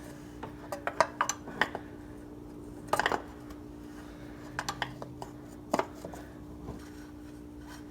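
Scattered metallic clicks and clinks as the loosened oil filter housing cap is worked off its threads, with a cluster of clinks about three seconds in and a sharp knock near six seconds. A faint steady hum runs underneath.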